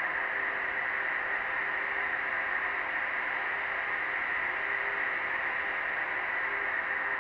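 Steady snowstorm wind noise, an even hiss with no gusts or breaks, with a faint steady low tone underneath.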